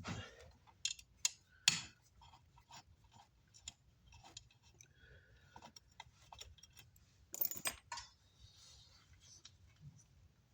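Scattered light metallic clicks and taps of a screwdriver and small metal parts being handled while a car amplifier is taken apart, with a louder cluster of clacks about seven and a half seconds in.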